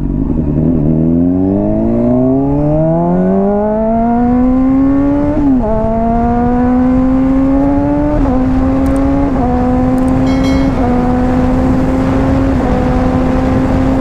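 Honda CBR600RR inline-four with a slip-on exhaust accelerating hard: the revs climb steadily for about five seconds, drop sharply at an upshift, then hold near steady with four smaller dips at further gear changes, over steady wind noise.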